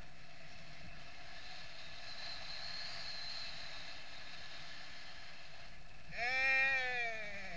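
A sheep bleats once near the end, a single baa of about a second and a half whose pitch holds and then falls away, over a steady hiss.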